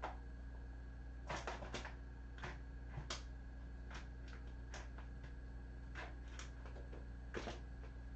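Scattered light clicks and taps at irregular intervals, about a dozen in all, over a steady low electrical hum.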